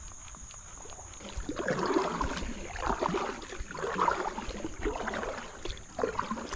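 Kayak paddle strokes splashing through river water, about one stroke a second, starting a second and a half in.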